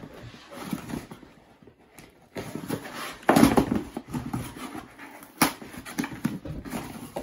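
Hands pulling and tearing at a taped cardboard shipping box: packing tape ripping and cardboard flaps scraping and flexing in uneven bursts, with a sharp snap a little over five seconds in.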